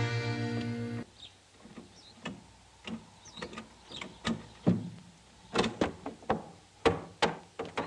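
The last of an accordion tune dies away in the first second, then a horse trailer's rear door is opened and a horse is unloaded: irregular knocks and clatters of the door and of hooves on the trailer floor, louder and more frequent in the second half.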